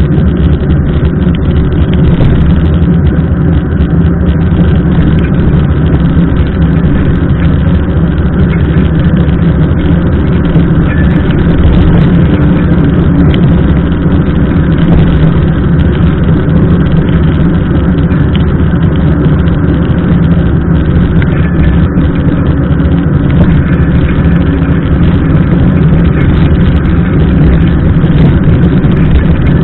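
Loud, steady low rumble of wind and ride vibration on a bike-mounted camera's microphone as a mountain bike rolls along a wet road in the rain.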